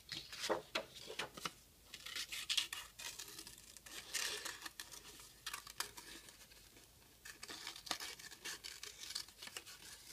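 Scissors cutting construction paper: a run of short snips with paper rustling between them, pausing briefly a little past halfway.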